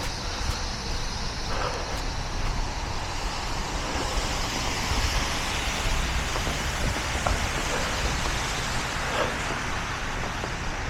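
Steady outdoor street noise: wind blowing across the microphone's foam windscreen, a low unsteady rumble, mixed with the hiss of traffic on a snowy street.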